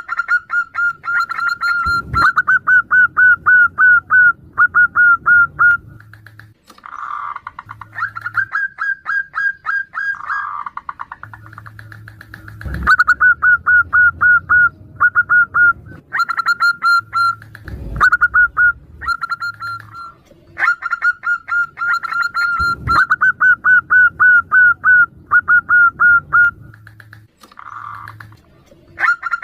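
Zebra doves (perkutut) calling back and forth in phrases of rapid, evenly spaced short notes, with a few softer calls in the gaps. Four sharp knocks come between the phrases.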